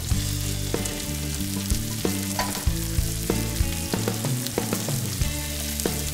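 Italian sausages with onions and savoy cabbage sizzling in a hot oiled frying pan, with sharp clicks of metal tongs against the pan as the sausages are turned.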